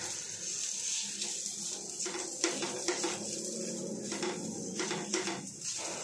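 Fingers patting and pressing wheat adai dough flat on a dosa griddle, with a series of light taps and clinks against the pan, mostly from about two seconds in.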